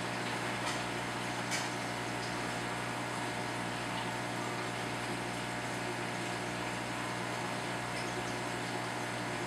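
Steady hum of aquarium equipment running, with a faint click about one and a half seconds in.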